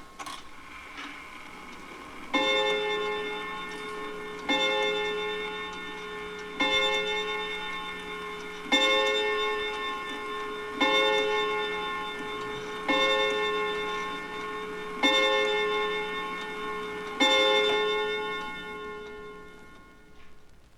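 Mantel clock striking the hour on its gong: eight identical ringing strikes about two seconds apart, each dying away slowly, the last fading out near the end.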